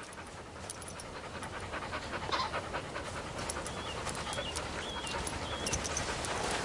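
A spaniel panting fast and rhythmically, getting louder as it comes closer. A small bird chirps four times in the background midway through.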